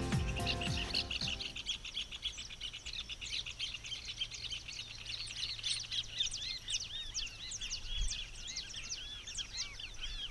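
Small birds chirping at dawn: many quick, high, arching notes overlapping densely throughout. Background music fades out in the first second or two.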